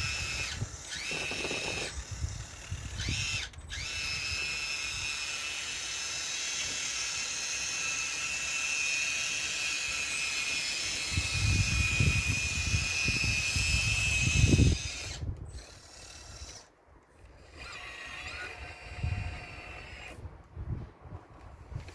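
Hydraulic pump of a radio-controlled Caterpillar excavator model whining steadily, its pitch dipping briefly under load near the start. Low rumbling comes in for a few seconds before the whine cuts off about 15 seconds in.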